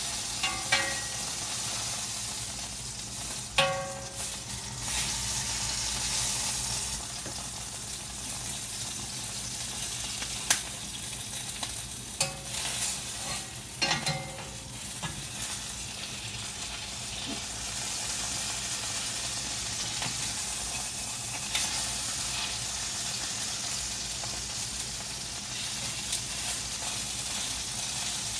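Chicken leg quarters sizzling steadily as they sear in a hot skillet. Metal tongs and a spatula knock and scrape against the pan a few times, some knocks ringing briefly.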